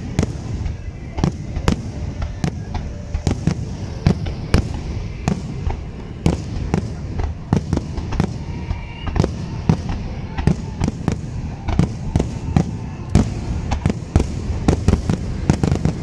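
Aerial firework shells bursting in a dense, irregular barrage, several bangs a second over a continuous low rumble.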